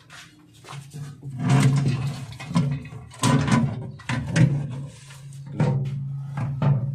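Repeated knocks and rattles of hard parts being handled, in clusters about every second, over a steady low hum.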